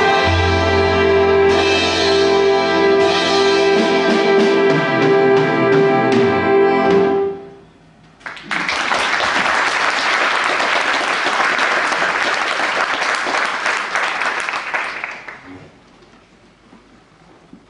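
Swing big band of saxophones, trumpets, trombones, double bass and drums ending a number on a long held chord, which cuts off about seven seconds in. A second later the audience breaks into applause, which lasts about seven seconds and then dies away.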